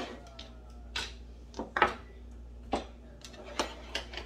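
Kitchen utensils and bowls knocking and clinking on the worktop: about five separate sharp knocks spaced unevenly, the loudest a little under two seconds in.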